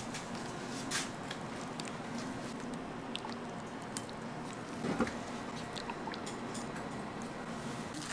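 Clear liquid jelly being poured from a stainless steel measuring cup into a metal cake ring: soft wet trickling with a few light clicks, the clearest knock about five seconds in.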